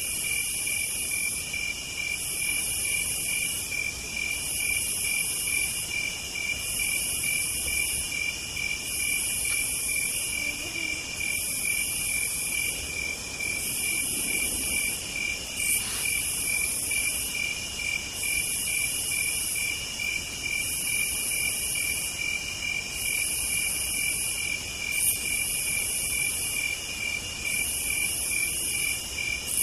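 Chorus of night-singing insects. A high buzzing song repeats about every two seconds over a steady high trill and a fast, even chirping lower down, with a couple of faint clicks.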